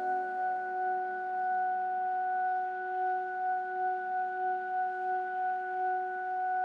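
A single sustained synth note ringing out on its own at the tail of a trap instrumental, steady in pitch with a pure, bell-like tone, its loudness wavering evenly about twice a second.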